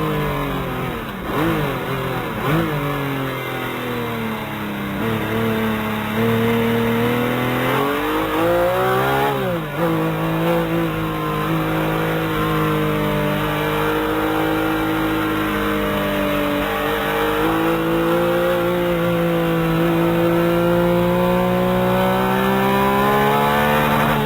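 A car engine running hard at speed, its pitch swooping down and back up twice near the start and again about nine seconds in, then holding high and slowly climbing.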